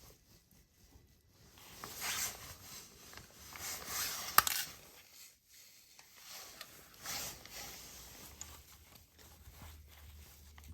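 Scattered clinks, scrapes and rustles of metal parts being handled, with one sharp metallic click about four and a half seconds in, as a motorcycle drive chain and front sprocket are refitted.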